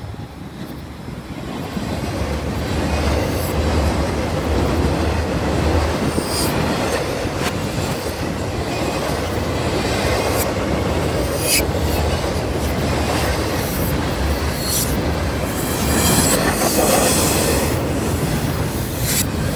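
Intermodal freight train of double-stack containers and trailers on flatcars passing close by, played backwards. It is a steady rumble of steel wheels on rail with scattered clanks, swelling up over the first few seconds.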